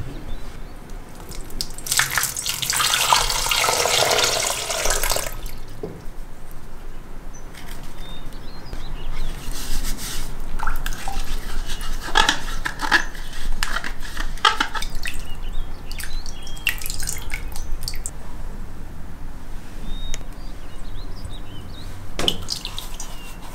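Water splashing and dripping in a glass bowl as apples are rubbed and washed by hand. A longer, louder stretch of sloshing comes about two seconds in, followed by scattered small splashes and drips.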